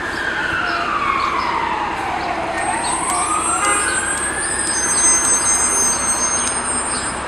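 Emergency vehicle siren in a slow wail, its pitch falling and then rising again over about five seconds, over steady street noise. A thin high-pitched squeal sounds over the second half.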